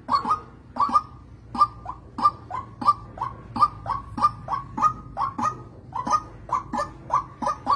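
White-breasted waterhen (chim quốc) calling: a long, unbroken run of short, evenly repeated calls, about two to three a second, over a faint steady low hum.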